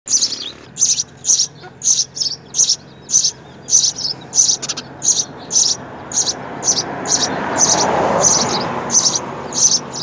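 House sparrow nestlings begging: short high-pitched chirps repeated steadily, about two a second, while they are fed at the nest. A rushing noise swells and fades in the middle.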